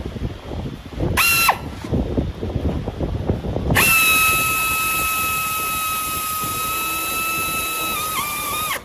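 A power tool whining at a steady high pitch with a hiss: a short burst about a second in, then a run of about five seconds that sags briefly once near the end and stops abruptly, over a low rumble of shop noise.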